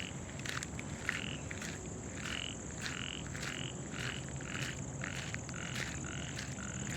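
A rapid, regular series of short animal calls, about two a second, over a steady high-pitched whine and a low background rumble.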